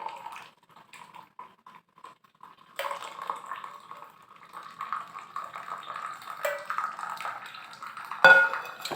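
Hot herbal kadha strained from a pan into a glass: a few light clinks of utensils, then liquid pouring steadily for about five seconds. Near the end there is one sharp, loud clink of metal or glass.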